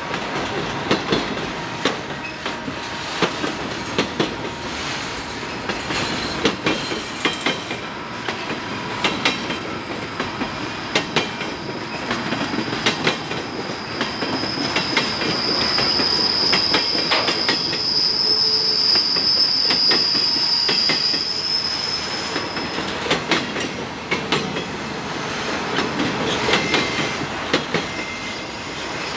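Piggyback freight train of trailers on flatcars rolling past, its wheels clicking and clattering on the rails. About halfway through a steady high-pitched wheel squeal rises over the clatter for several seconds, then fades.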